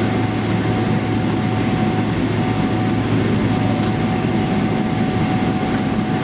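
Steady cabin noise inside a Boeing 777-300 on the ground after landing: a constant low rumble of the engines and the rolling wheels, with a steady hum and a thin high tone running through it.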